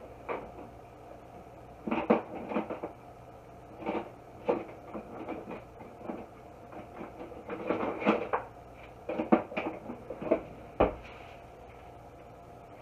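Lid of a stainless steel pot of rice at the boil, rattling and clicking in irregular clusters as the boiling water lifts it, over a low steady hum.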